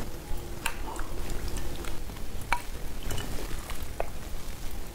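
A few sharp, scattered clicks of close-miked eating, about four in all, over a low steady background rumble.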